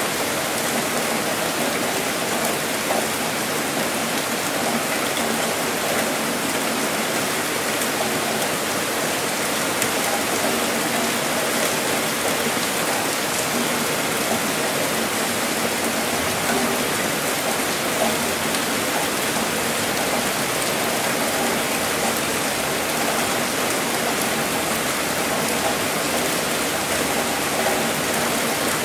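Heavy rain falling steadily: a dense, even hiss with the odd slightly louder drop.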